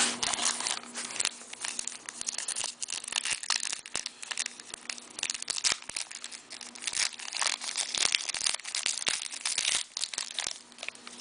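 Foil wrappers of hockey card packs crinkling and tearing as they are opened by hand, a dense run of crackles with louder spells.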